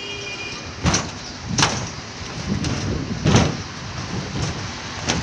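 Four loud knocks at irregular intervals over steady background noise.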